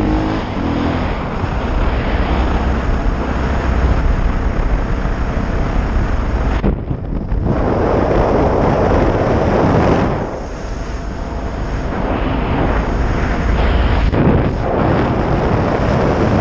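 Suzuki DR650SE's single-cylinder engine running under way through an FMF exhaust with a Powerbomb header, mixed with heavy wind noise on the microphone. The sound dips briefly about seven seconds in, then builds again.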